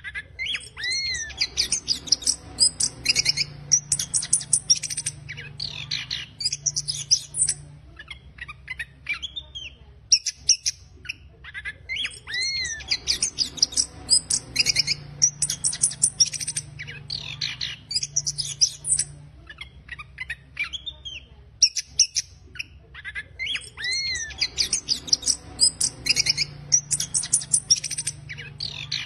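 Chestnut-capped thrush (anis kembang) singing a rough, fast twittering song of chirps and high whistles that rise and fall, in bursts with short pauses. The same song passage comes round about every eleven seconds, over a faint steady low hum.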